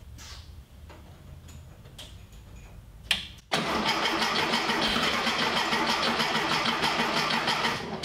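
The starter cranks the 1973 VW Thing's air-cooled flat-four engine, a fast even chugging that begins about three and a half seconds in and stops abruptly after about four seconds. The engine does not start, which the owner puts down to ignition timing he had altered.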